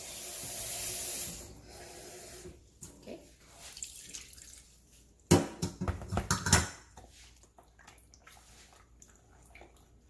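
A cup of water poured into thick, half-cooked rice-flour batter to soften it, running for about the first second and a half. Then a wooden spoon stirs the batter and knocks against the plastic bowl, with a cluster of loud knocks from about five to six and a half seconds in.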